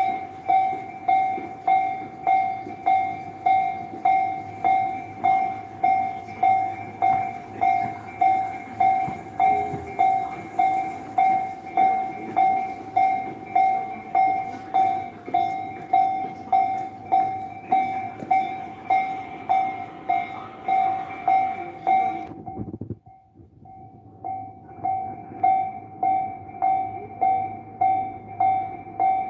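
Japanese railway level-crossing warning bell ringing in steady, evenly spaced strikes, about one and a half a second. It drops out briefly about 23 seconds in and then starts again.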